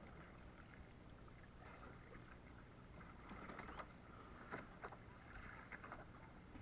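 Faint water lapping against a floating windsurf board, with a scatter of small splashes and knocks in the second half.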